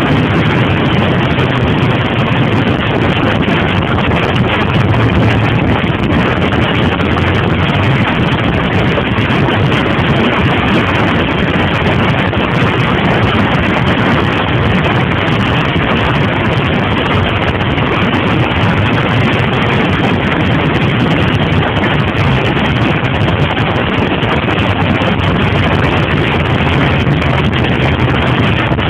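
Steady wind rush over the microphone of a 2002 Suzuki TL1000R under way, with the bike's V-twin engine running underneath.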